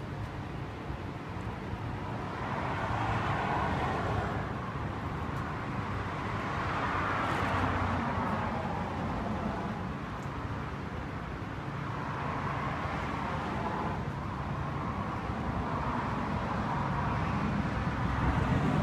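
Road traffic: several vehicles passing one after another, each swelling and fading over a few seconds, over a steady low rumble.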